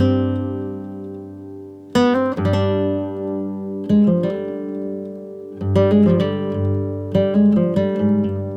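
Background music on acoustic guitar: plucked chords and notes that ring and fade, struck again about every two seconds.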